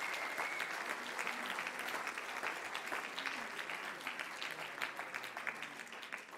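Audience applauding, a dense patter of many hands clapping that gradually dies away near the end.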